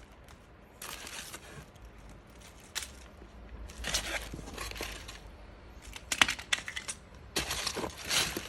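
Parts of a shopping trolley being handled and pulled from their packaging: scattered light clinks and knocks, with stretches of rustling.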